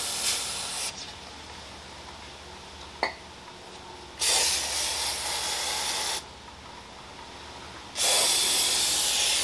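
Aerosol brake cleaner sprayed through its straw onto a new brake rotor to degrease it, in hissing bursts. One burst stops about a second in, a two-second burst starts about four seconds in, and another starts near the end. A short click comes about three seconds in.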